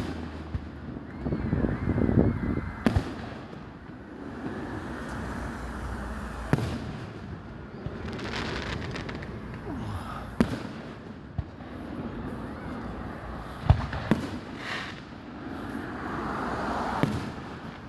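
Fireworks display: aerial shells bursting with sharp bangs every few seconds, the loudest about two-thirds of the way through, over a steady rumble of noise between bursts.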